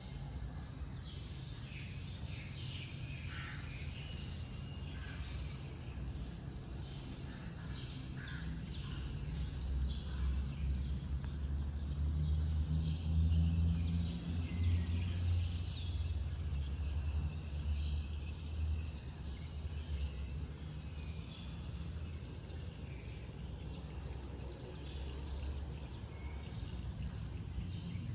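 Small birds chirping in short, scattered calls, over a low rumble that grows louder for several seconds in the middle.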